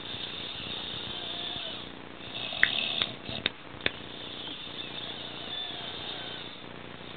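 A drunk man passed out and snoring loudly. A few sharp clicks come in quick succession about halfway through.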